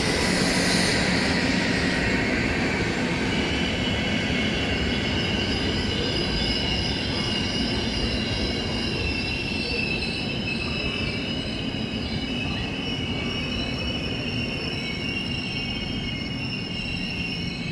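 Train running through the station over a steady low rumble, its wheels squealing on the rails with several high, steady tones that set in about three seconds in.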